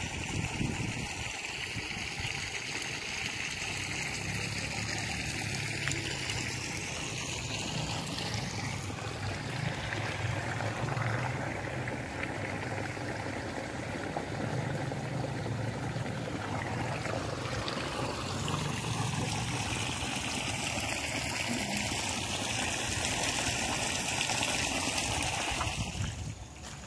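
Water running steadily out of an irrigation hose and trickling into the flooded basins around pepper trees.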